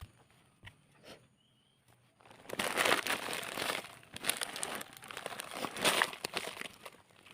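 Plastic polybag crinkling and rustling with short tearing crackles as it is handled during a turmeric harvest. The sound starts about two and a half seconds in and comes in uneven bursts.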